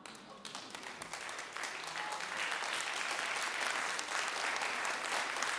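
Audience applauding, rising over the first two seconds and then holding steady.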